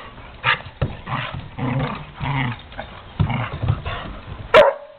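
Two dogs play-fighting: a run of short growls, then one sharp, loud bark about four and a half seconds in.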